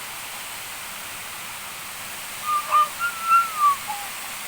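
Steady rushing of a waterfall, with a short, high-pitched gliding call from about two and a half seconds in.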